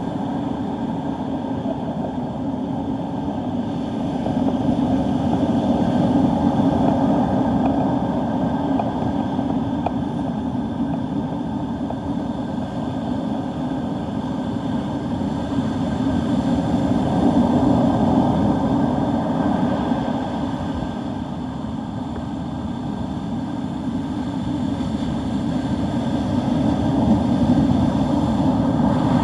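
Steady low rush of wind and Gulf surf on a beach under an approaching hurricane, swelling louder three times.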